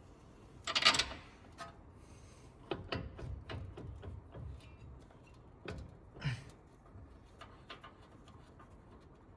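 Metal tools and parts being handled during work on a truck's wheel hub: a loud, brief clatter about a second in, then scattered clicks and knocks.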